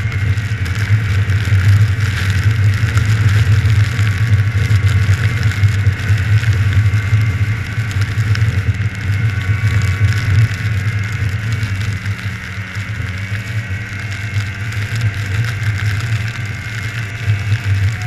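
Snowmobile engine running steadily as the sled travels along a trail, easing off a little in the last third.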